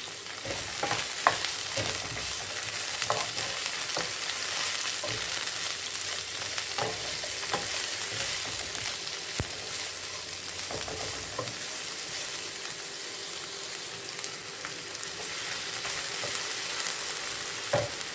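Chopped onions and garlic sizzling steadily in hot oil in a pot, with a few light clicks of a utensil stirring them now and then.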